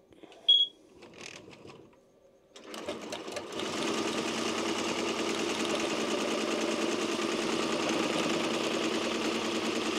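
Tajima TMBP2 commercial embroidery machine starting up: one short beep, then about two and a half seconds in the needle head starts up, speeds up over about a second and settles into a steady, fast stitching rattle while it stitches through 3D puff foam on a cap.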